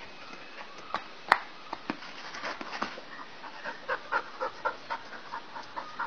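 A single sharp knock, a wooden cricket bat striking the ball, about a second in. It is followed by a dog panting in short quick breaths, about three or four a second.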